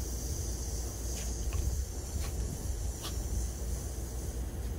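Outdoor ambience: an uneven low rumble, like wind on the microphone, under a steady high hiss, with a few faint clicks.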